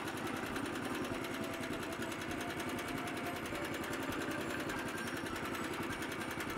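Cement mixer truck running: a steady, fast mechanical rattle.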